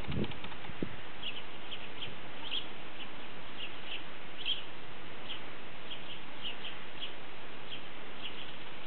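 Small birds chirping, short high chirps one or two a second over a steady background hiss, with a couple of low thuds in the first second.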